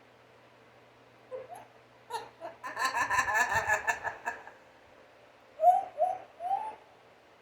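African grey parrot vocalising: a few short squeaks and clicks, then a rapid pulsed chattering run lasting about a second and a half, then three short rising whoops near the end.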